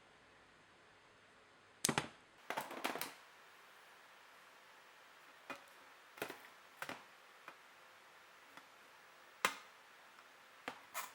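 Steel drill bits clicking and tapping against a magnetic storage block as they are handled. The clicks are short and sharp and come one at a time or in quick clusters: several together about two to three seconds in, then singly every second or so, with the loudest near the end.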